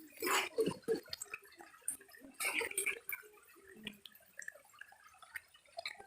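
Water dripping and splashing in irregular small clicks and bursts, louder twice, near the start and about two and a half seconds in.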